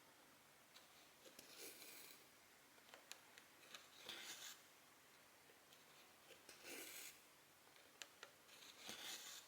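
Cotton embroidery thread being pulled through 14-count cross-stitch fabric: soft swishes four times, about every two and a half seconds, with a few faint clicks between.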